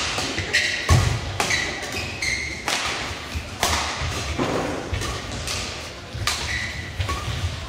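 Badminton singles rally: sharp racket strikes on the shuttlecock several times, with short squeaks of shoes on the court floor and thuds of players' feet landing.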